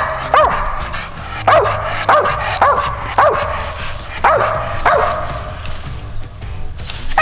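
A hunting dog barking repeatedly in short barks that rise and fall in pitch, about seven in the first five seconds, then easing off.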